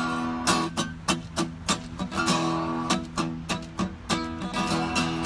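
Acoustic guitar strummed in a steady rhythm, about two strokes a second, the chords ringing on between strokes.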